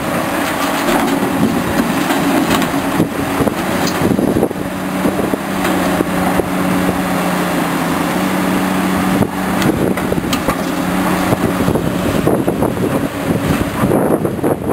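Diesel engine of a Caterpillar tracked excavator running steadily under load, with scattered knocks and clanks of the bucket and dirt as it loads a dump truck.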